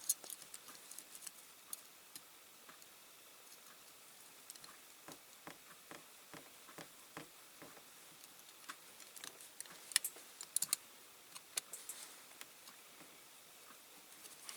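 Faint scattered clicks and taps of pliers against a diecast metal toy truck as a pin is worked through its tailboard hinge, with a few sharper clicks about ten seconds in.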